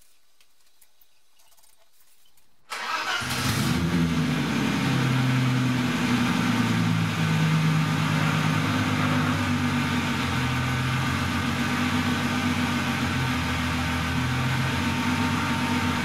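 A BMW E30 325i's M20 2.5-litre straight-six starts suddenly about three seconds in, then runs steadily at idle with a few small changes in engine speed.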